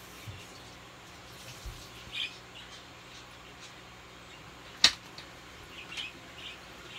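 Scattered short high chirps over a faint steady low hum, with one sharp click about two-thirds of the way in, the loudest sound.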